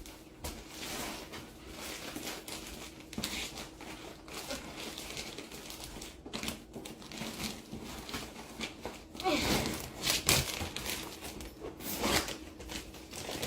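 Plastic bags crinkling and rustling as vacuum-sealed plushies are stuffed into another bag, in irregular handling strokes that are loudest a little past halfway.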